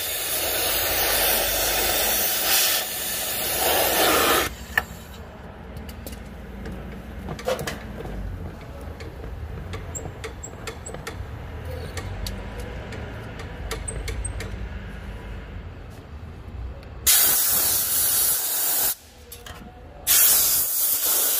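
Oxy-fuel torch flame hissing as it heats a seized mechanical brake part on a tractor red-hot. The hiss cuts off suddenly about four seconds in, leaving only faint ticks, and comes back in two short bursts near the end.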